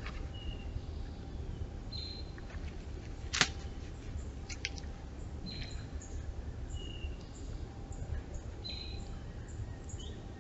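Short, high bird chirps every second or two over a steady low hiss, with one sharp click about a third of the way in and a few fainter clicks soon after.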